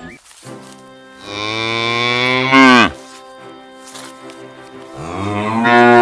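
A cow mooing twice: two long moos, each dropping in pitch as it ends.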